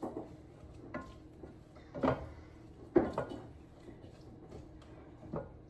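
A few light knocks and clatters of kitchen utensils and cookware, roughly a second apart, over a faint steady background hiss.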